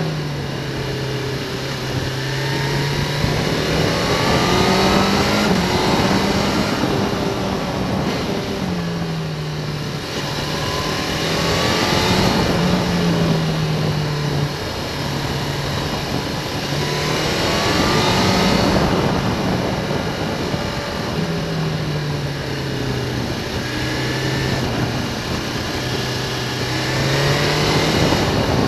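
Sport motorcycle's engine heard from onboard, its pitch rising and falling every few seconds as it accelerates and shifts through a run of bends, over steady wind and road noise.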